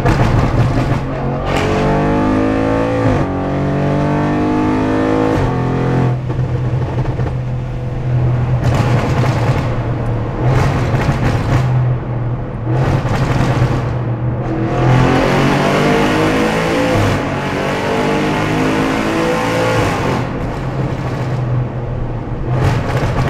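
Straight-piped Audi RS6's twin-turbo V8 accelerating hard, heard from inside the cabin. Twice the revs climb, drop at a gear change and climb again, with loud full-throttle stretches between the pulls.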